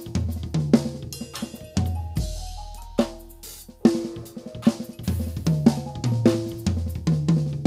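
Acoustic drum kit played along with a backing track: kick, snare, hi-hat and cymbal hits over a bass line and held chords. About two seconds in a cymbal rings out and the playing thins. A hard hit brings the full groove back about four seconds in.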